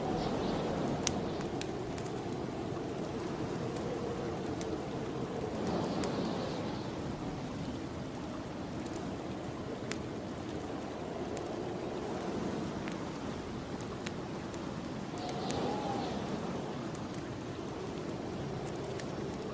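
Snowstorm wind blowing steadily, with gusts swelling about six seconds in and again near the end, over the scattered sharp crackles of a wood fire burning in a fireplace.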